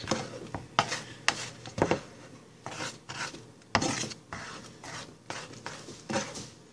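Handheld spice mill twisted by hand over a pan, its grinder rasping in a run of short, uneven strokes.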